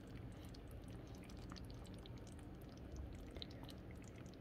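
Quiet room tone: a faint steady low hum with a few soft ticks, one slightly louder about three seconds in.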